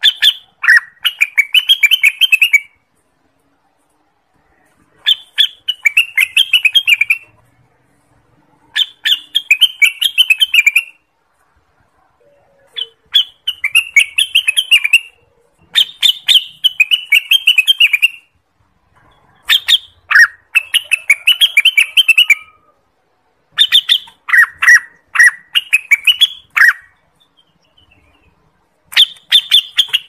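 Orange-spotted bulbul (cucak wilis) singing: about eight short, fast chattering phrases of around two seconds each, with silent pauses between them. Each phrase opens with a few sharp notes and then runs into a quick jumble of notes.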